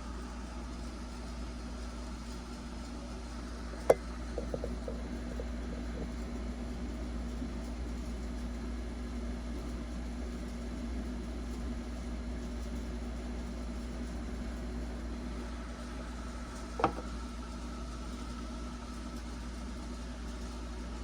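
Steady low hum with a constant tone. There is a sharp click about four seconds in, a few light ticks just after it, and another sharp click about seventeen seconds in.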